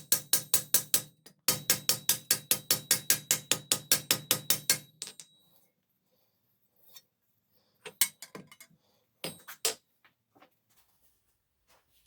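Rapid, even hammer blows on a steel knee armour plate over an anvil, about seven a second, straightening out the plate's distortions; a brief break about a second and a half in, and the blows stop about five seconds in. A few scattered single knocks follow.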